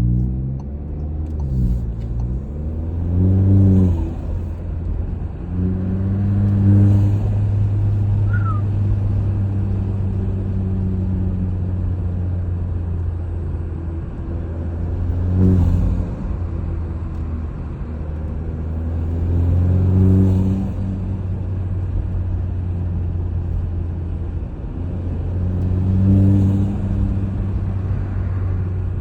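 Mk7 Volkswagen Jetta's turbocharged four-cylinder engine, fitted with an aftermarket intake, pulling under acceleration while driving; the engine note climbs and drops again about five times, each rise louder.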